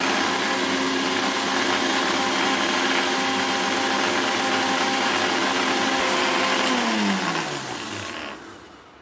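Electric blender running steadily at speed, blending liquid milk. About seven seconds in it is switched off and the motor's whine falls in pitch as it spins down.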